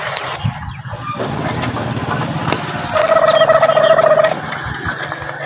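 Small motorcycle engine running as the bike rolls up slowly, with a steady higher-pitched tone over it for about a second and a half from about three seconds in, the loudest part.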